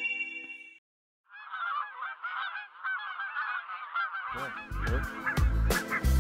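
The tail of an intro jingle fades out. Then a flock of wild geese honks in flight, many overlapping calls. About three seconds later, music with a strong beat comes in over the calls.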